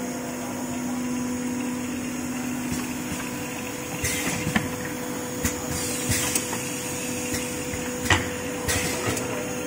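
Automatic jerrycan filling and capping line running with a steady hum. From about four seconds in, the capping station works: several sharp clacks and short hisses.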